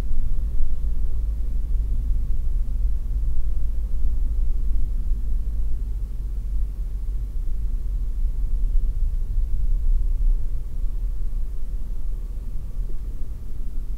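Steady low rumble of a car's engine and tyres on the road, heard from inside the cabin while driving at low town speed.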